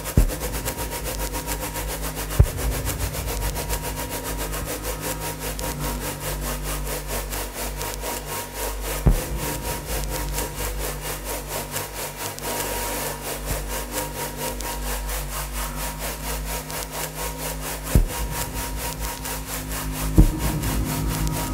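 Experimental electronic soundscape built from recordings of burning: a fast, evenly pulsing rasp over steady low drones and a held tone, broken by a handful of sharp clicks.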